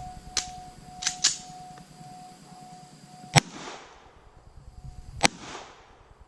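Pistol shots: two loud shots about two seconds apart, each followed by a trailing echo. They come after a few lighter sharp cracks in the first second and a half.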